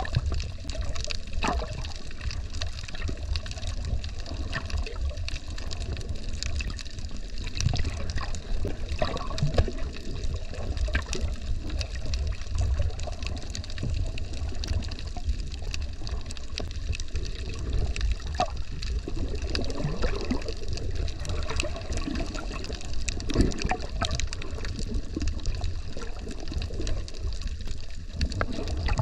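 Underwater ambience picked up by a submerged camera: a steady low rumble of moving water with bubbling, sloshing noise and scattered sharp clicks throughout.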